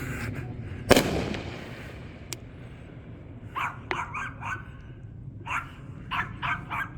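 A firework going off with a sharp bang about a second in, its sound fading away over the next second or so. From about halfway through, a dog barks in short bursts, several times.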